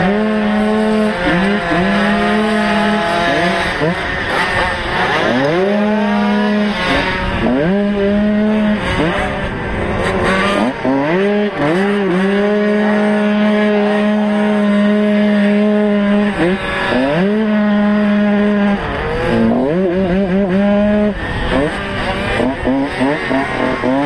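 Motocross bike engine at racing speed, revving up and dropping back with each gear change and on and off the throttle through the turns, held at a steady pitch for a few seconds in the middle.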